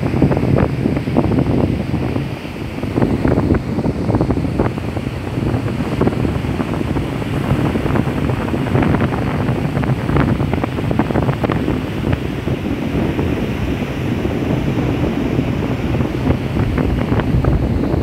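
Ocean surf breaking and washing up a sandy beach, in a steady rushing wash, with wind buffeting the microphone.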